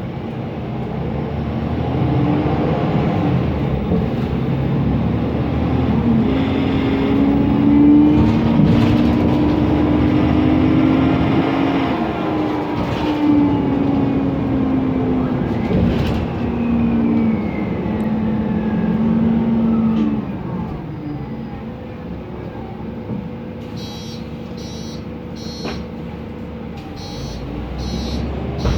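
Mercedes-Benz Conecto NGT city bus with its compressed-natural-gas OM 936 G engine running under way, the engine and drivetrain whine rising and falling in pitch, then settling to quieter, steadier running about twenty seconds in. A short run of evenly spaced ticks comes near the end.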